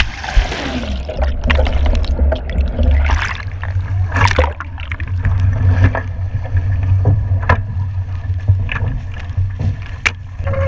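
Strong wind buffeting the microphone in a heavy, uneven low rumble, with water splashing and a scattered series of short knocks against the small sailing dinghy's hull.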